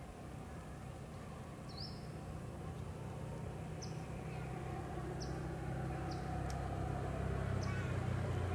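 Low engine rumble growing gradually louder, with short high chirps every second or two above it.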